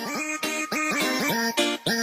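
Music: a quick run of short pitched notes, each sliding up into its pitch, with a brief break near the end.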